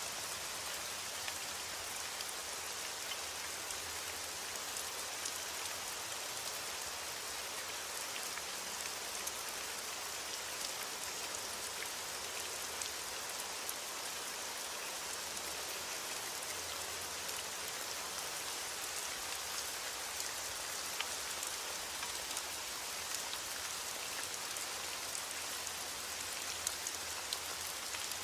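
Heavy rain against a window: a steady, even hiss with scattered small sharp ticks.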